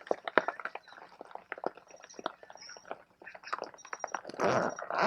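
Hailstones and rain striking the fabric of a carp-fishing bivvy in a violent storm: a dense, irregular patter of sharp ticks, with a louder rush near the end.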